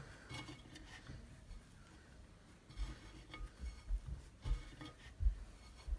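Hands kneading soft potato gnocchi dough in a ceramic bowl: faint soft thuds as the dough is pressed down, about five of them in the second half, with light knocks from the bowl.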